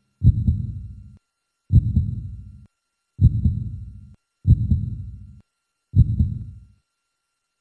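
Heartbeat sound effect: five deep thumps about one and a half seconds apart, each dying away over most of a second.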